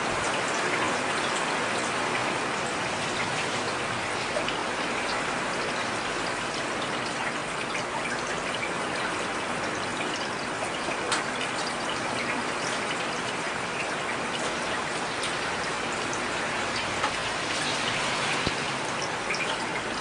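Heavy rain falling steadily, an even hiss with scattered sharper drop ticks.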